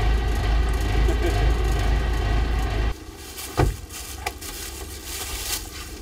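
A small fishing boat's engine running with a steady low rumble, which stops abruptly about three seconds in. A quieter background follows, with a sharp knock and then a smaller one.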